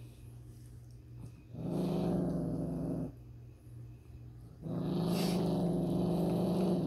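Maltese dog growling: two long, low growls, the first about a second and a half long, the second starting about halfway through and still going at the end.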